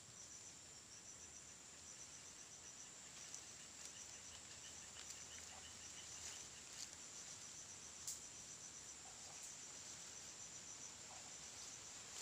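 Faint, high-pitched insect chirping: a steady trill made of rapid, even pulses, with a single faint tick about eight seconds in.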